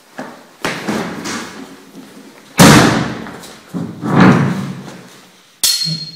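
Several heavy thumps and rustles as a person drops into an upholstered armchair; the loudest thump comes about two and a half seconds in, with a sharp click near the end.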